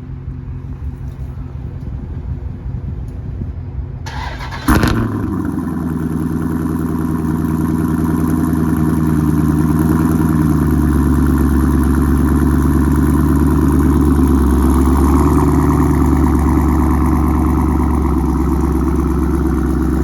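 Jeep Grand Cherokee SRT's 6.4-litre HEMI V8 started about five seconds in. It fires with a sharp burst, then settles into a steady idle.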